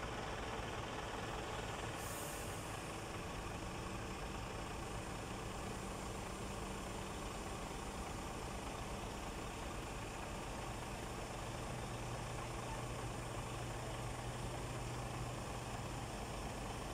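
Heavy diesel engine running steadily while a mobile crane lowers a piling machine, its low note shifting slightly about ten seconds in. A short hiss comes about two seconds in.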